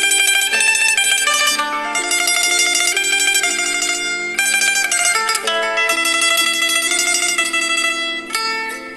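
Background music: a plucked-string melody, mandolin-like, with notes changing several times a second.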